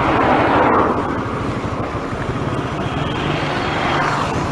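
Riding noise on a moving bicycle: steady wind rush on the microphone, with a car passing close in the first second.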